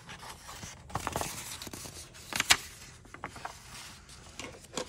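Page of a picture book being turned by hand: paper rustling and sliding, with one sharp flap of the page about halfway through and a few light taps after.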